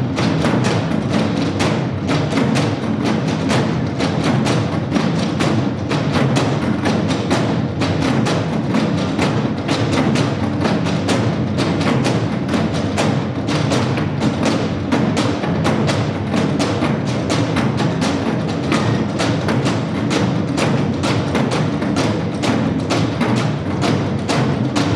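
Nanta drum ensemble beating drums in a fast, dense, unbroken rhythm, with sharp wooden-sounding strikes over the deep drum hits.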